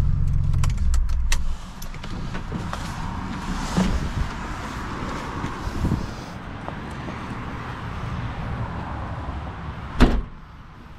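Rustling and movement as someone gets out of a 1992 Nissan 300ZX, then the driver's door is shut with a single loud thud near the end. The door is out of alignment and does not close properly.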